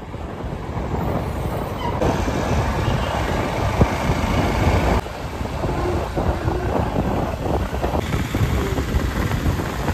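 Vehicle running along a city street: a steady engine and road rumble with wind and traffic noise. It changes abruptly a few times, about a second, two seconds and five seconds in.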